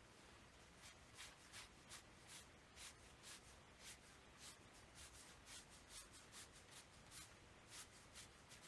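Faint swishes of a thin watercolour brush stroked back and forth across Strathmore watercolour paper, about two or three light strokes a second.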